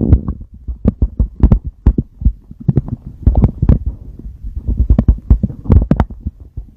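A man's stomach gurgling in a run of short, irregular pops and clicks, several a second.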